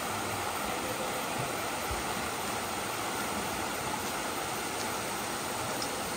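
Water of a rocky mountain stream flowing steadily over small cascades into pools.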